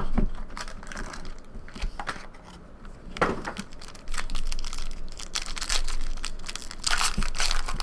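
Foil trading-card pack wrapper crinkling and tearing as it is handled and opened: scattered crackles at first, turning into a dense run of rustling and crackling about halfway through.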